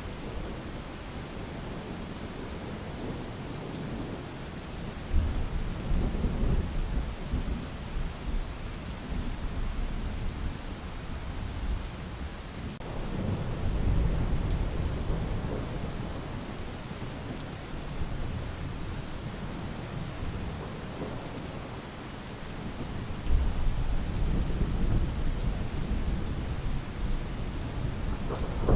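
Steady rain falling in a thunderstorm, with three long rolls of low thunder beginning about five, thirteen and twenty-three seconds in.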